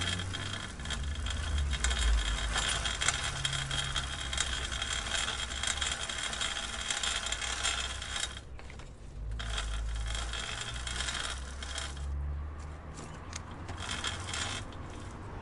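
Bicycle chain clicking: a dense run of rapid, fine metallic clicks over a low rumble. The clicking breaks off briefly about eight seconds in, then grows sparser after about twelve seconds and fades.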